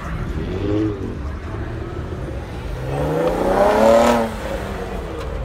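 Sixth-generation Chevrolet Camaro pulling away and accelerating past. Its engine gives a short rev about half a second in, then climbs in pitch to its loudest as it passes near the middle-to-end and drops away suddenly.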